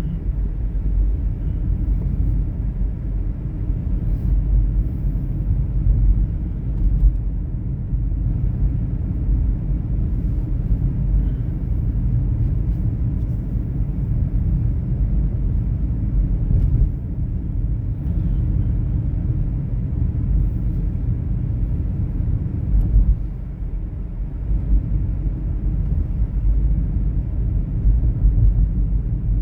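Steady low rumble of a vehicle's cabin on the move, with small irregular swells in level.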